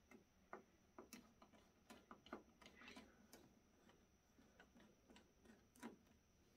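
Faint, irregular small clicks and ticks of hand-tool work on the LED wiring inside an opened rack-mount power conditioner's metal chassis.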